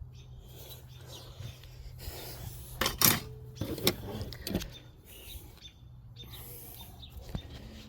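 Hand tools being handled and set down: a few sharp clicks and knocks, the loudest about three seconds in, over a steady low hum.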